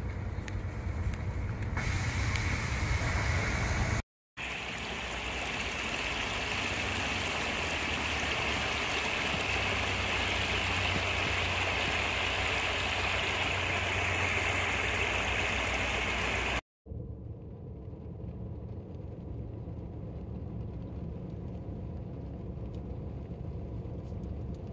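Storm water after a hailstorm. Rain and dripping give fine patter at first. After a cut, muddy floodwater rushes steadily over a low concrete edge, the loudest part. After a second cut, quieter water flows across a flooded street with a low rumble.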